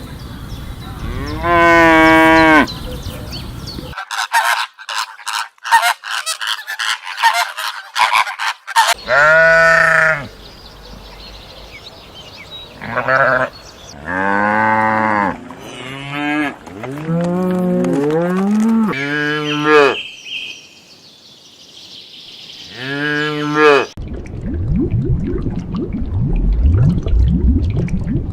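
Cattle mooing, a string of separate calls cut together from different recordings, with other farm animal calls among them. A stretch of clicking comes a few seconds in, and a noisy rumble near the end.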